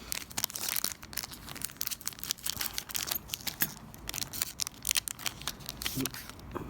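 Trading-card pack's wrapper being torn open and crinkled: a dense run of rips and crackles.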